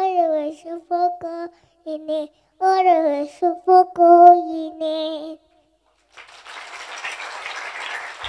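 A girl singing a hymn-style melody alone, without accompaniment; the song ends about five seconds in. After a short pause, a round of applause starts and keeps going.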